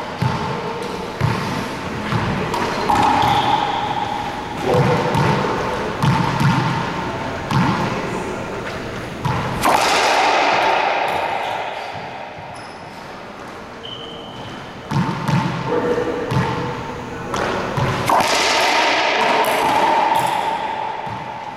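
Racquetball rally: the rubber ball is struck by racquets and smacks off the court walls in a string of sharp hits. Two hard shots, one near the middle and one near the end, ring out with a long echo in the enclosed court.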